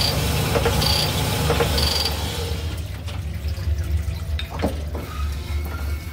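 A cylinder-honing machine runs with a steady low hum as its honing head strokes up and down in a bore of a Chevrolet S10's 2.2-litre inline-four block, honing oil splashing, with a rasp about once a second. After about two and a half seconds the oil splash and rasp die away, leaving the machine's hum.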